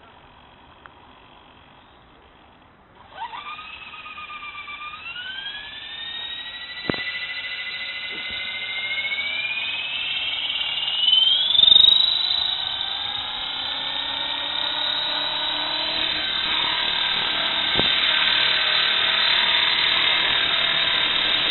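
Electric RC helicopter spooling up: after about three seconds of faint background, the motor and rotor start a whine that rises steadily in pitch for about nine seconds, then holds high and steady as the helicopter lifts into a hover.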